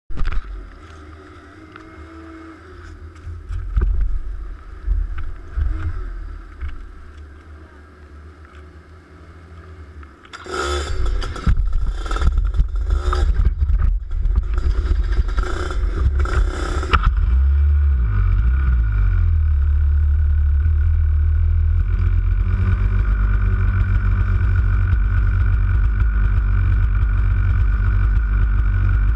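Kart engines on the grid: first camera handling and scattered knocks, then loud ragged engine noise from about ten seconds in as engines fire up, a quick rev near eighteen seconds, and a steady engine idle to the end.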